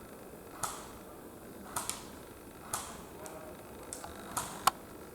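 Sporadic sharp pops of airsoft fire, about seven single cracks at uneven intervals roughly a second apart, the loudest near the end.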